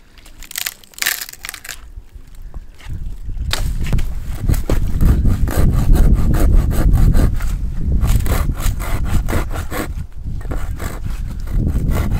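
Wood being sawn by hand: quick, even back-and-forth strokes over a heavy deep rumble, starting about three seconds in after a few scattered crunches.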